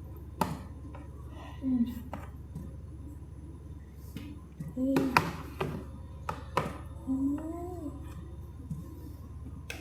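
A large spoon clicking and knocking against a container several times as gummy bears are scooped out, with a few short murmured vocal sounds in between.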